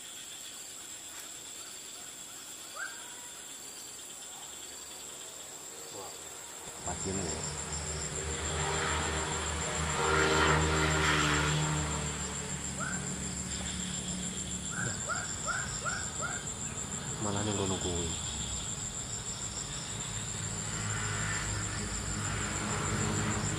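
Insects trilling steadily at a high pitch. About seven seconds in, a low rumbling noise comes in and stays under it, and a few short high chirps sound in the middle.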